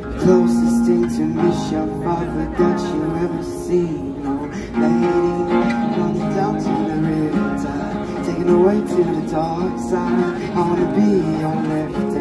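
Live acoustic guitar strummed through outdoor PA speakers, a steady run of chords.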